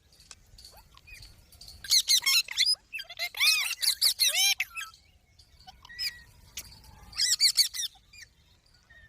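Pet green parrot calling in quick strings of shrill squawks that bend up and down in pitch: a burst about two seconds in, a longer one from about three to four and a half seconds, a single short call near six seconds and another burst near seven and a half seconds.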